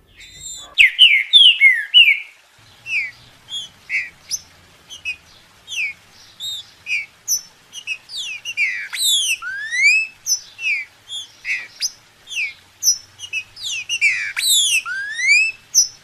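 Green-winged saltator (trinca-ferro) singing: a long run of clear whistled phrases, many of the notes sliding up or down in pitch, starting about half a second in.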